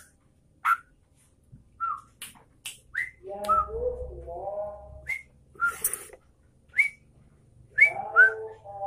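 Yellow-vented bulbul (trucukan) calling: short, sharp whistled notes, several rising, with bubbly warbling chatter about three seconds in and again near the end.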